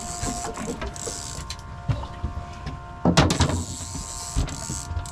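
Fishing reel being cranked, its gears whirring and clicking, with a loud clatter a little after three seconds in.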